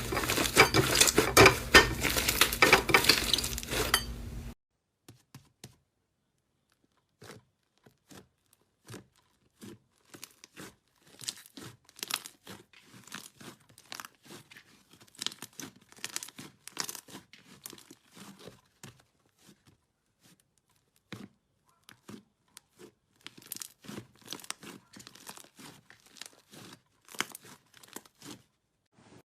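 Slime being squeezed and played with: a dense, loud crackling for the first four seconds or so that cuts off suddenly, then sparse small clicks and pops with quiet gaps between them.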